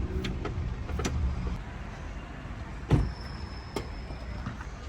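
A car engine idles with a low, steady hum that stops about a second and a half in. About three seconds in comes a single loud thump, like a car door shutting, with a few lighter clicks around it.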